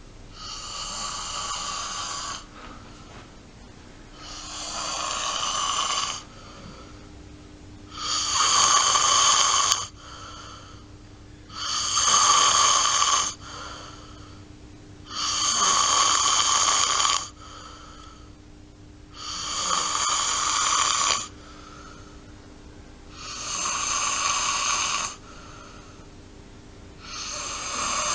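Snoring: a rasping noise on each breath, about every four seconds. Each snore lasts about two seconds, swelling and then cutting off.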